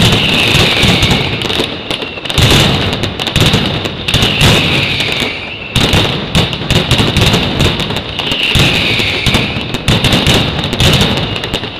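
Mascletà pyrotechnics: a dense, rapid barrage of firecracker bangs and rocket bursts, with a shrill high whistle running over it and bending down and back up at times. The barrage eases briefly a little before the middle, then surges again.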